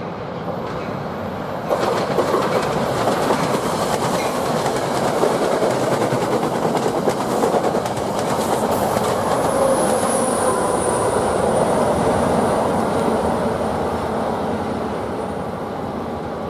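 A double-deck commuter train passing close by: a steady rush of wheel and car noise with clickety-clack over the rail joints, getting suddenly louder about two seconds in. A thin, high squeal from the wheels comes in about halfway through and fades a few seconds later.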